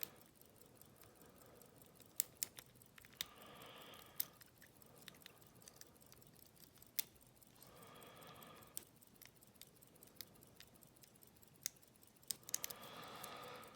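Faint, irregular clicks and ticks of a lock pick and tension wrench working the pins inside an Abus 72/40 padlock, while it is being picked after the false set was lost.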